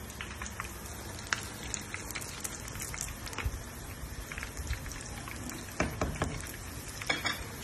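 Steady crackling sizzle like food frying in hot oil, dotted with sharp pops. A few louder clicks and knocks come near the end.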